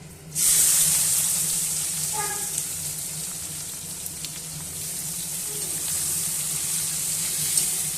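Food dropped into hot oil in a pan: a sudden loud sizzle about half a second in that slowly settles into steady frying.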